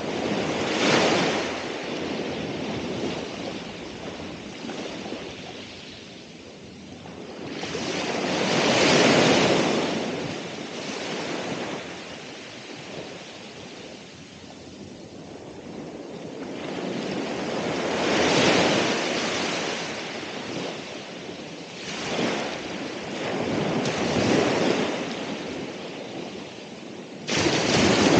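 Ocean waves breaking and washing up the shore, each surge swelling and fading over several seconds, with a sudden louder wash near the end.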